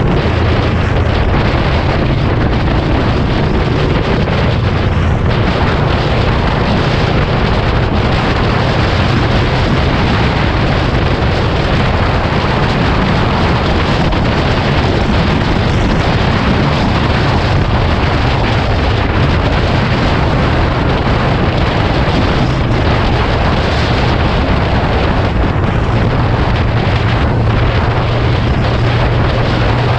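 Heavy wind buffeting on the camera microphone at highway speed, over the low steady drone of a Yamaha VMAX 1700's V4 engine cruising. The recording is poor, the wind noise swamping much of the engine sound.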